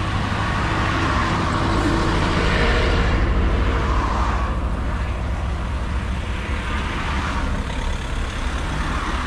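A motor vehicle engine idling with a steady low rumble, while traffic passes on the road in rising and falling swells.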